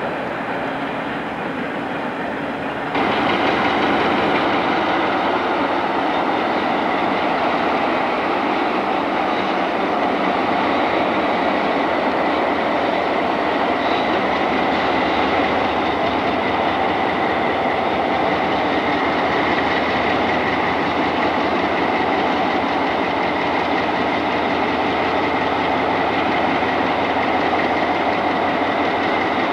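Diesel locomotive engines running steadily. The sound jumps louder about three seconds in, after which it is Mohawk, Adirondack & Northern locomotive 806 running.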